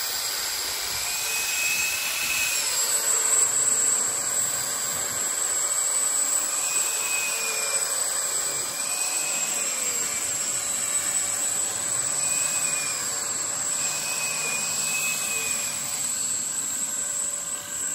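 Angle grinder with a dust shroud raking mortar out of the joints between concrete blocks: a steady high whine whose pitch dips and recovers as the disc bites into the joint. A dust extractor runs with it, drawing through the shroud's hose.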